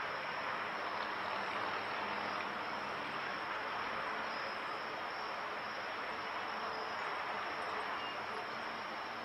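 Steady night-time ambience: a continuous wash of distant noise with a high, steady insect chorus of crickets running through it.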